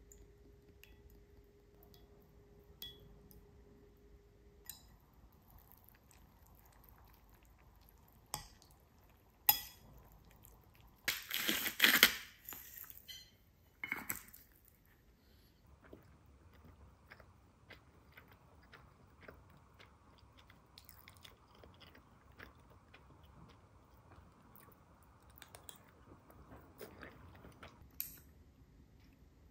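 Quiet handling of a ceramic bowl and utensils with a few light clicks. About eleven seconds in, a hand-twisted grinder grinds pink salt over the bowl in a short crunchy burst, with a second brief grind near fourteen seconds.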